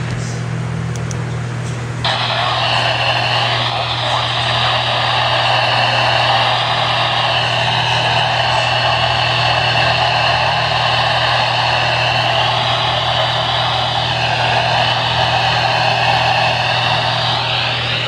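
NOAA weather radio's speaker hissing with loud, steady static that starts abruptly about two seconds in, over a steady low hum.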